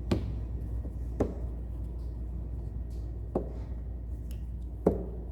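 Four sharp knocks, irregularly spaced, as sockets and organizer pieces are set down in a toolbox drawer, the last the loudest, over a steady low hum.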